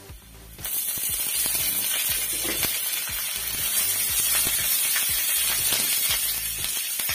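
Fresh curry leaves dropped into hot coconut-style tempering oil with shallots and dried red chillies, setting off a sudden loud sizzle and spatter about half a second in that keeps on as they are tossed with a spatula, with light scrapes against the wok.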